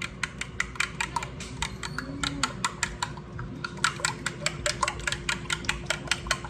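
A fork beating raw eggs in a bowl: quick, regular clicks of the fork against the bowl, about five or six a second, pausing briefly partway through.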